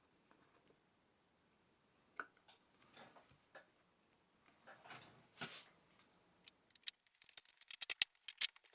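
Faint scattered clicks and light knocks of small hard parts and tools being handled, with a brief scrape about five seconds in and a quick run of sharper clicks near the end.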